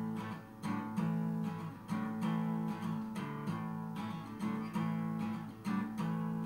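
Steel-string acoustic guitar strummed by hand in a steady rhythm, about two to three strums a second, chords ringing without a voice: an instrumental break in the song.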